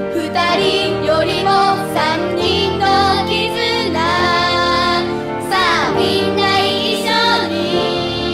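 Music: a song with a sung melody over a full instrumental accompaniment.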